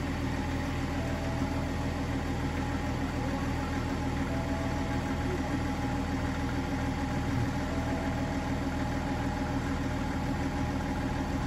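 Steady low mechanical hum of a running motor with an even pulsing beat, unchanged throughout.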